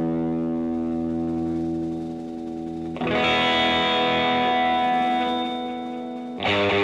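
Background music: distorted electric guitar holding sustained chords, with a new chord struck about halfway through.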